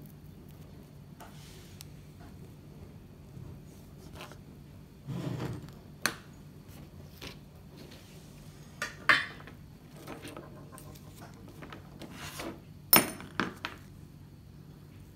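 Handling noises at a soldering bench: scattered sharp metallic clicks and clunks as a wire is set in a metal helping-hands alligator clip and tools are handled, with a dull knock about five seconds in and the loudest click about two seconds before the end. A faint steady hum runs underneath.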